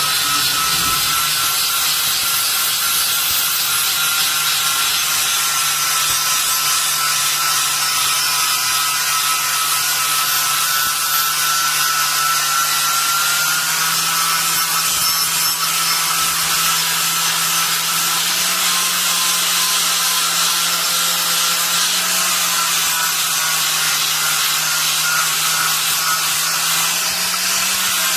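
Electric power tool running steadily and unbroken, a low motor hum under a dense hiss, the hum rising slightly in pitch late on.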